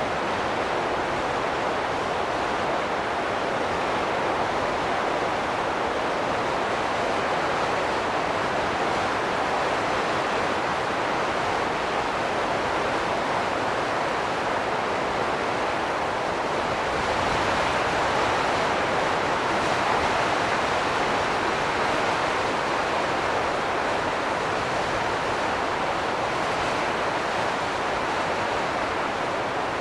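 Wind gusting: a steady rushing noise that swells a little about two-thirds of the way through.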